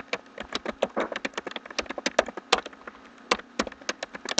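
Typing on a computer keyboard: quick, irregular keystroke clicks, several a second, as a line of text is typed.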